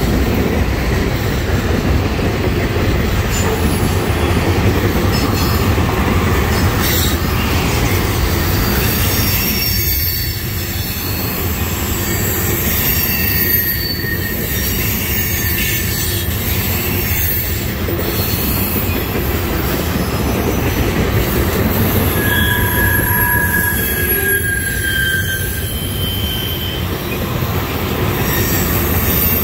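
Freight train of open-top trash cars rolling past: a steady rumble of steel wheels on rail, with high-pitched wheel squeals coming and going and a few sharp clicks.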